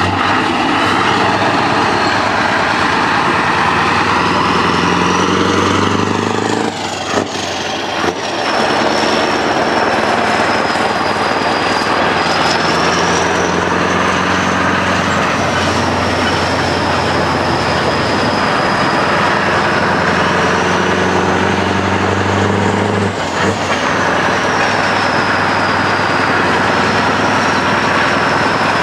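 Scania R500 truck's V8 diesel running through an open straight-pipe exhaust as the truck rolls slowly, a steady low engine note with a high whine that slowly rises and falls. The sound breaks briefly about seven seconds in.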